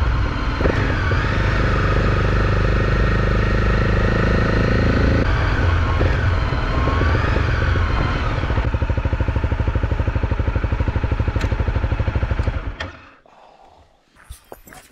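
Motorcycle engine running while riding a gravel track, settling about nine seconds in into a slow, even pulsing idle as the bike rolls to a stop. The engine is switched off near the end, and a few light clicks and knocks follow.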